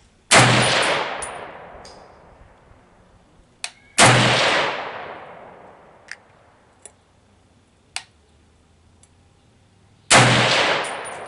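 Three single semi-automatic rifle shots from an M14-pattern 7.62×51mm rifle firing Federal XM80C ball ammunition, the first right at the start, the second about four seconds in and the third near the end. Each crack is followed by a long echoing tail, with a few faint small clicks in between.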